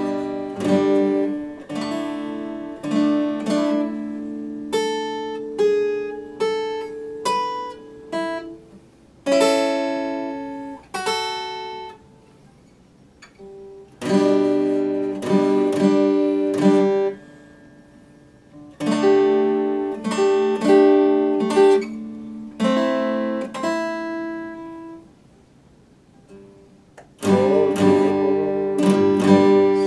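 Epiphone acoustic guitar played solo, chords picked and strummed in phrases and left to ring out. The playing stops twice, about 12 and 25 seconds in, for a second or two.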